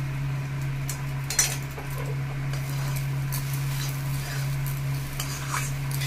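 A metal spatula scraping and clinking against a metal kadhai as a dry stuffing of onion, crushed peanuts and gram flour is stirred and roasted. The scrapes come irregularly, with a sharper clink about a second and a half in, over a steady low hum.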